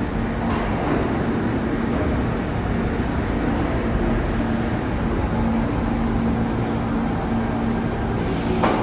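New York City subway train rumbling in the station, a steady low noise with an on-and-off hum, and a short burst of high hiss near the end.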